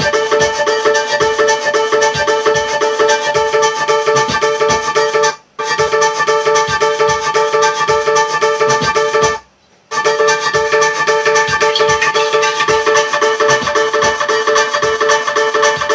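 Instrumental music: steady held tones over a fast, dense pulse of short struck or plucked notes. It breaks off twice, briefly about five seconds in and for about half a second near the middle.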